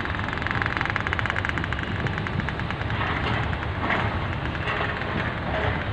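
Diesel engine of a rail work locomotive running steadily with a fast, even beat as the work train rolls along the track.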